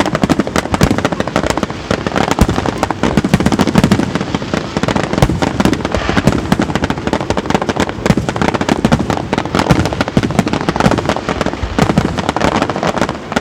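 Fireworks display: a dense, unbroken run of bangs and crackling bursts from many shells going off close together.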